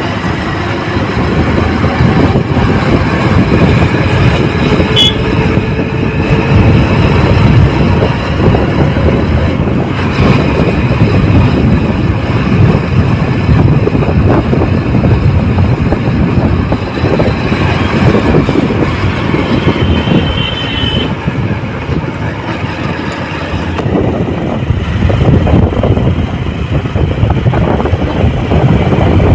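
Motorcycle riding noise: a loud, steady rumble of engine and road noise with wind buffeting the microphone.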